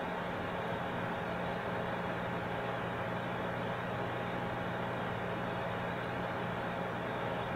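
Steady whir and hum of a PC's cooling under rendering load: the Xilence LiQuRizer LQ120 all-in-one water cooler's 120 mm radiator fan and pump running at constant speed. Even rushing noise with a few steady tones.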